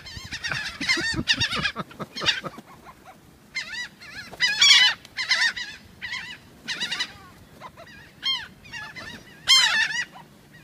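A flock of birds calling, many short calls in quick runs with brief lulls between; the loudest calls come near the middle and near the end.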